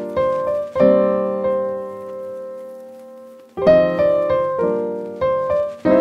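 Background music: slow piano chords. A chord struck about a second in is left to ring and fade for a few seconds, then several chords follow in quicker succession near the end.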